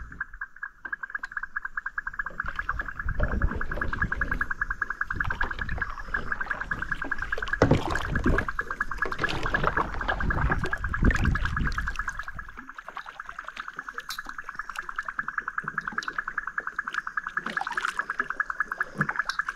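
A steady animal trill, one continuous run of very rapid, even pulses. A low rumbling noise sits under it from about three to twelve seconds in.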